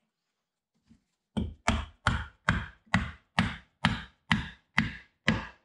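A mallet tapping a wooden tenon down into a square mortise: about ten even, sharp knocks at roughly two a second, starting about a second and a half in, as the joint is driven home.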